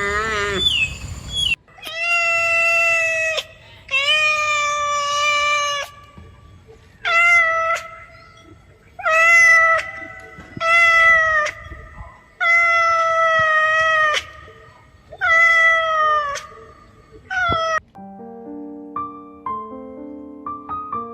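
A cat meowing over and over: about eight long, even-pitched meows, each lasting one to two seconds with short gaps between. Soft piano music begins near the end.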